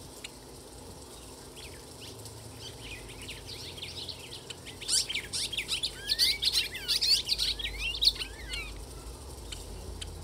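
Java sparrows chirping in quick, high, overlapping notes. The chirps start a few seconds in, crowd together loudest in the middle and thin out near the end.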